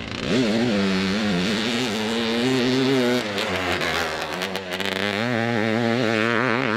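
1971 Suzuki TM400 Cyclone's single-cylinder two-stroke engine being ridden hard, its pitch rising and falling repeatedly with the throttle.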